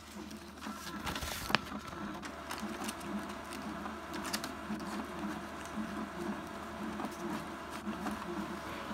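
Epson XP-8500 inkjet photo printer running its print-head alignment job, its motors whirring steadily in a repeating pattern as paper feeds through. One sharp click comes about a second and a half in.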